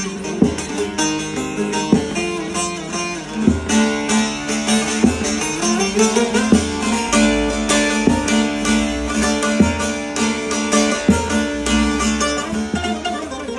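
Bağlama (long-necked Turkish saz) with a carved mulberry bowl and spruce top, played solo: a fast picked melody over ringing drone strings, with a hard strummed stroke about every second and a half.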